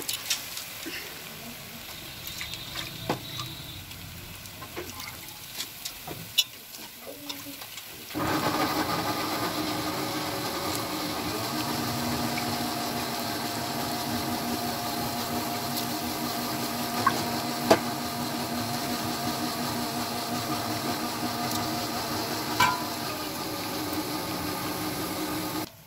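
Light clicks and a low background, then about eight seconds in a sudden steady rushing hiss with a low hum sets in and holds unchanged.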